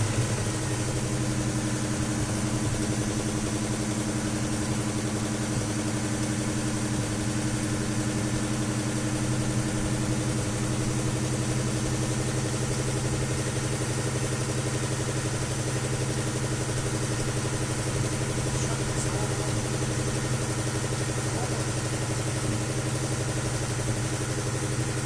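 V8 engine in a GAZ Volga idling steadily, with the strange knocking in the engine that the owner is showing.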